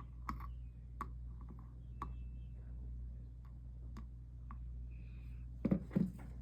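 Scattered light clicks and taps from pieces and tools being handled on a stained glass work surface, over a steady low hum. Two heavier thumps come near the end.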